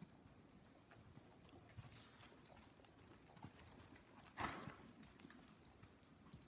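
Faint hoofbeats of a ridden paint horse moving over the soft dirt footing of an indoor arena, with one short, louder rush of noise about four seconds in.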